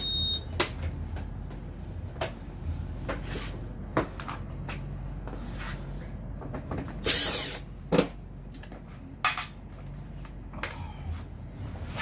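Cordless drill-driver run in short bursts to back out the scooter's body-panel screws, the longest and loudest burst about seven seconds in. Scattered clicks and knocks of the plastic panels being handled come in between.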